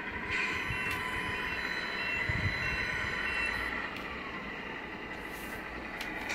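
1/14 Tamiya Scania P340 RC tractor unit running, its drive whining steadily, with short electronic reversing beeps repeating about twice a second through the first half.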